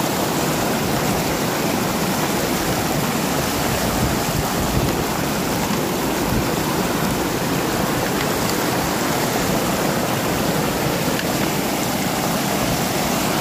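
Fast river rapids rushing and churning close by: a loud, steady wash of whitewater.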